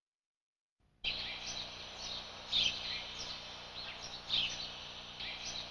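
Birds chirping over a steady outdoor ambience, short high chirps recurring about once a second, cutting in suddenly about a second in after silence.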